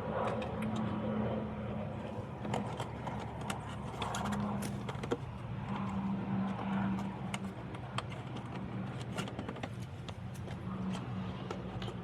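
Scattered light clicks and rustles of a wiring harness and plastic being handled as the wire is fed behind the fender well, over a steady low hum.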